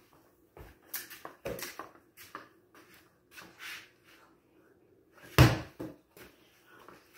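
Scattered knocks, shuffles and footsteps on a concrete floor, with one loud thump about five and a half seconds in.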